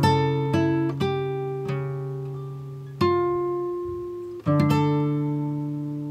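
Background music: plucked string chords, each struck sharply and left to ring and fade, a new chord every second or so.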